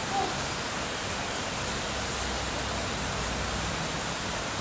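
Steady, even hiss of rain, with a brief faint chirp just after the start.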